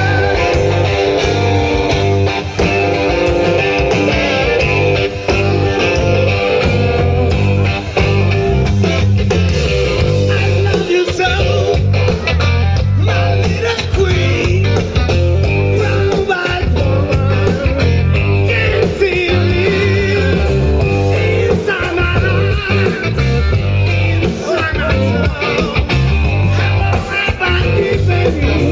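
Rock band playing live: electric guitar, bass and drums, with singing at times.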